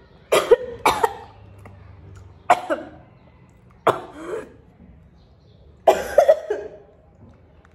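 A woman coughing in about five short, loud fits a second or two apart.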